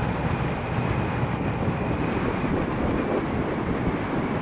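Travel noise from riding in a moving vehicle, mostly wind rushing over the microphone with engine and road noise under it.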